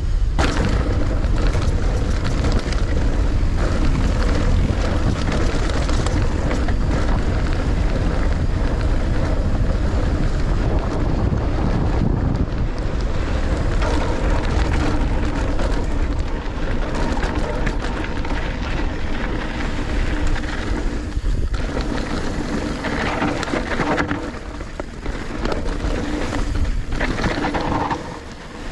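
Wind buffeting the microphone of a handlebar-mounted camera as an enduro mountain bike descends a dirt trail at speed, with tyres on loose dirt and the bike rattling and knocking over bumps. The wind noise drops briefly a couple of times near the end.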